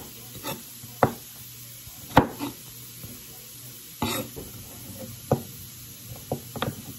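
Chef's knife slicing baby carrots into sticks on a wooden cutting board, the blade knocking the board in irregular single strokes, about eight in all, with a quick cluster of three near the end.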